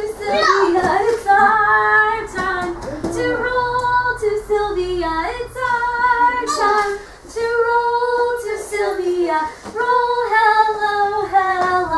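A woman singing a simple children's hello song in held, sung notes. A child's high voice briefly rises and falls about half a second in.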